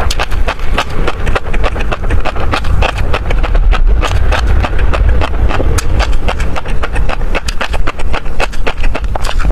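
Close-miked chewing of tobiko (flying fish roe): a dense, irregular stream of crisp pops and crunches as the tiny eggs burst between the teeth.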